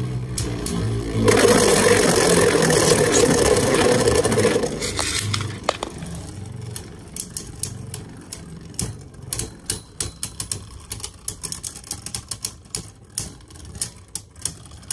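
Two Beyblade spinning tops, Vanish Fafnir against another top, in a plastic stadium: a loud grinding scrape starting about a second in and lasting some three seconds, then a long run of quick, irregular sharp clicks as the tops clash again and again.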